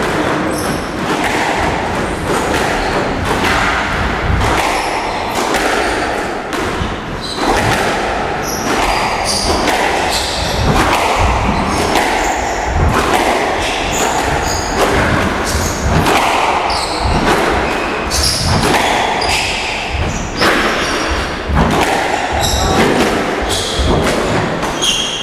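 A squash rally: the ball is struck by rackets and smacks off the court walls in a quick, irregular run of sharp thuds.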